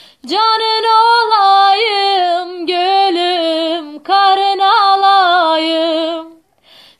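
A woman singing unaccompanied: long held, melismatic notes with ornamented turns and wavering pitch, in two phrases split by a short breath about four seconds in.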